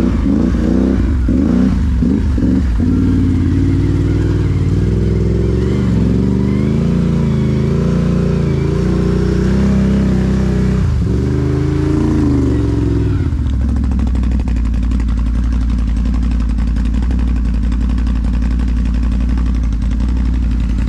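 Can-Am Renegade 1000 ATV's V-twin engine under way, the revs rising and falling repeatedly over the first dozen seconds, then settling to a steady, lower note from about two-thirds of the way in.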